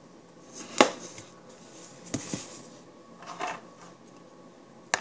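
Spice and salt containers being set down on a counter: a sharp knock about a second in, then a few softer knocks and handling clatters.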